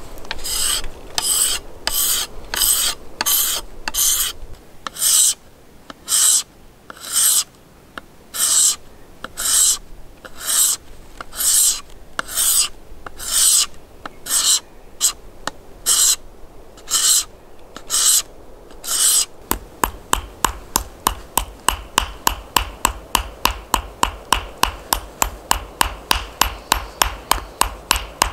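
A hand file rasping across a pale workpiece in slow, even strokes, a little over one a second. About two-thirds of the way through it gives way to a hammer tapping rapidly, about five light blows a second, on a thin sliver laid on a stone.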